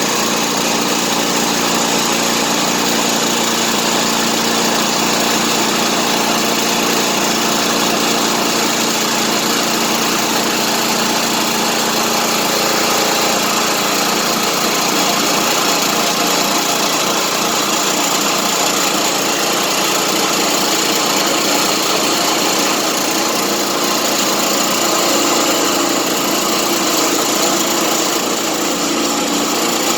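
The small gasoline engine of a portable band sawmill running steadily.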